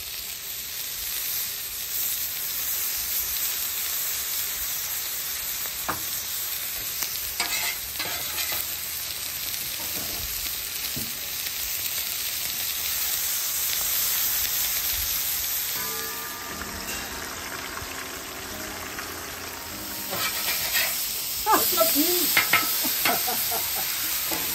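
Seasoned fish fillets sizzling in hot residual oil on a flat-top griddle as they are laid down to blacken: a steady frying hiss, with a few light clicks.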